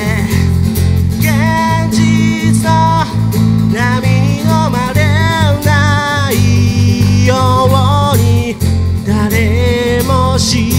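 A band playing a song live: a singer over two strummed acoustic guitars and an electric bass.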